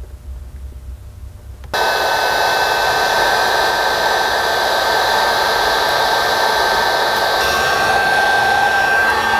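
Electric heat gun switched on about two seconds in and running steadily, a blowing rush with a steady whine, used to shrink tubing on a wiring connection; switched off at the end, its pitch starting to fall as the fan winds down.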